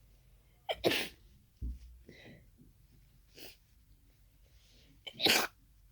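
Two loud sneezes, part of a sneezing fit from an irritated, tickling nose. The first comes about a second in and the second near the end, each with a quick catch of breath just before it. Softer breaths fall between them, and a low thump comes shortly after the first sneeze.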